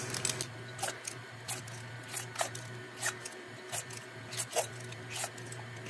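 Light metallic clicks and taps of a spring-release portion scoop as batter is scooped from a steel bowl and released into a metal mini muffin pan, repeated a bit more than once a second, over a steady low hum.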